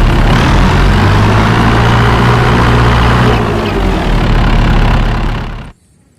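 Wheel loader's heavy diesel engine running steadily, then cutting off abruptly near the end.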